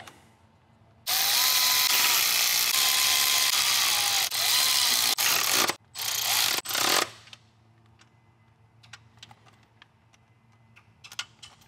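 Cordless electric ratchet driving down the thermostat housing bolts: one long run of about four and a half seconds with a motor whine that shifts in pitch, then two short bursts as the bolts snug up. Faint clicks of handling follow near the end.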